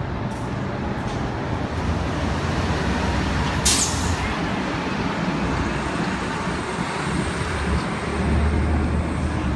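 Downtown street traffic: a steady rumble of passing engines and tyres, with a short sharp hiss about four seconds in, and the low rumble swelling near the end as a heavy vehicle goes by.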